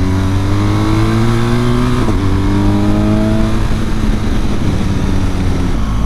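BMW R1200GS Adventure's flat-twin boxer engine accelerating hard, its pitch rising, with a gear change about two seconds in. It rises again, then the throttle is rolled off a little past halfway as the bike slows.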